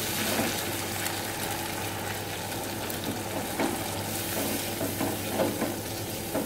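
Blended chili paste sizzling in a nonstick frying pan while a wooden spatula stirs it, with a few soft scrapes of the spatula against the pan in the second half.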